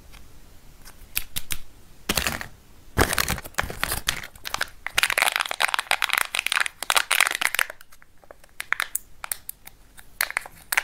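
Foil wrapper on a Kinder chocolate egg crinkling and crackling as fingers peel it away. A few sharp clicks come first, then a dense run of crinkling from about three seconds in, thinning out near the end.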